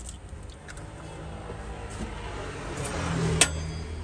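Egg cracked onto a crepe on a hot steel griddle, with a sizzle building over a second or two and a sharp click about three and a half seconds in, all over a steady low hum.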